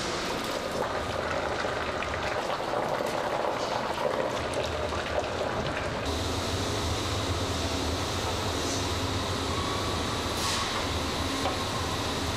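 Industrial machinery running: a steady rumble with a low hum and faint clanks, changing character about six seconds in.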